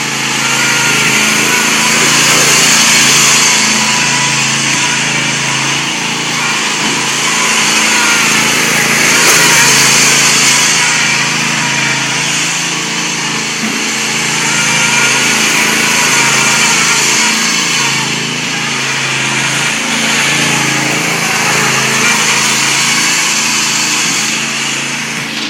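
Small lawn mower engine running steadily, growing louder and fainter by turns every few seconds as it moves about.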